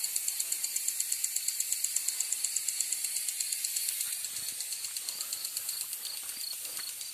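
Crickets chirping in a fast, even pulse of about seven or eight chirps a second, a little softer after about four seconds.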